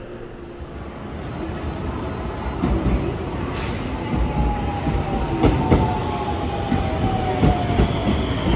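Electric commuter train running along a station platform, growing louder, with a series of wheel clacks over rail joints and a thin whine that slowly falls in pitch.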